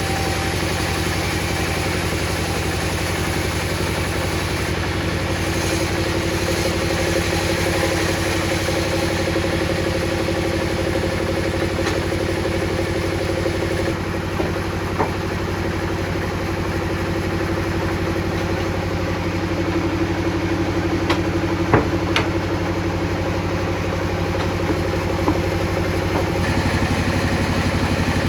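Table saw running steadily, its motor humming under a constant whirr, with a few sharp ticks in the second half.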